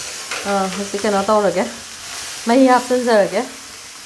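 A metal spatula stirring pumpkin pieces in a hot kadai, scraping and squeaking against the pan in two runs of strokes, over a steady sizzle.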